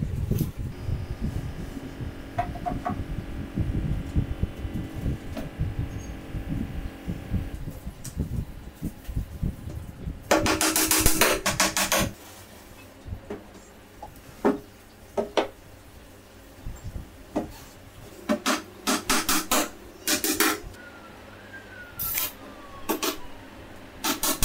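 Claw hammer driving nails through a laminated particleboard desk top into the panels beneath: quick runs of blows about ten seconds in and near the end, with single taps between. Before that there is only low rumble and handling noise.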